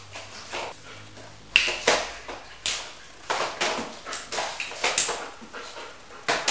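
A run of sharp, irregular clicks and knocks, starting about a second and a half in: a large dog's claws on a hard tiled floor and its paws and body knocking against a plastic crate as it steps in and around it.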